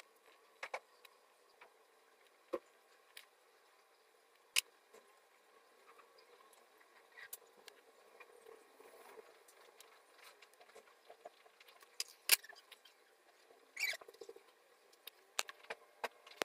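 Faint scattered clicks and taps of a fine paintbrush, small acrylic paint jars and a cardboard tag being handled on a tabletop while painting, over a low steady hum. The sharpest clicks come a little before halfway, about twelve seconds in and about fourteen seconds in.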